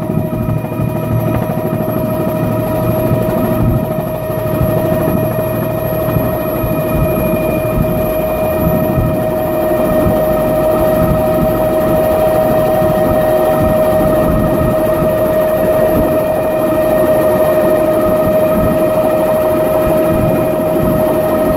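Helicopter in flight, heard from inside the cabin: a steady, unbroken engine whine over the low beat of the rotor.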